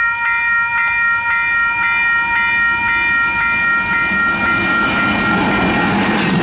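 Level crossing warning bells ringing in a steady pulse, about two strokes a second, as a diesel-hauled train approaches with a rumble that grows louder. Near the end the bells fade under the train noise.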